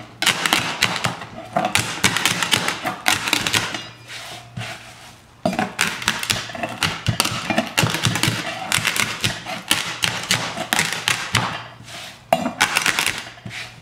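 Whole allspice (pimento) berries being crushed under the flat of a chef's knife on a plastic cutting board: rapid cracking and crunching with taps of the blade on the board. It comes in bursts, with a short lull about four seconds in.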